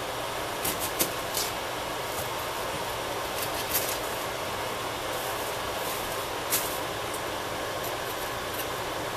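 A few light, sharp clicks and taps as hands handle a peeled onion on a wooden cutting board, over a steady background hiss and low hum.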